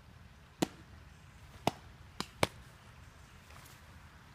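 Sharp pops of a softball smacking into a leather catcher's mitt and glove, four in about two seconds, the third lighter than the rest.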